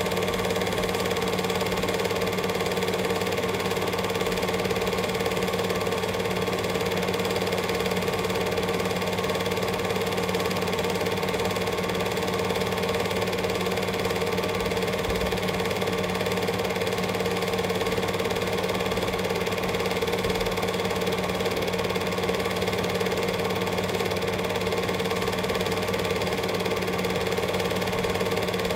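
Cine film projector running: a steady mechanical clatter of the film transport over a constant motor hum.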